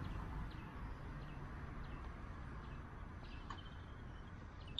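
Faint outdoor background: a low steady rumble with a small bird chirping repeatedly, short falling chirps every half second or so.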